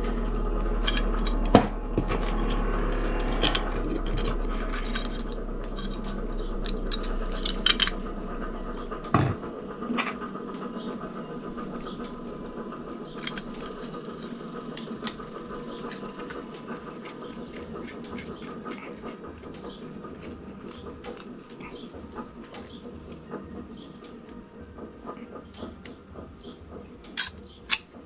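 Pieces of a homemade steel latch handled and fitted together by hand: scattered light metal clinks and taps. A steady low hum runs underneath and stops about nine seconds in.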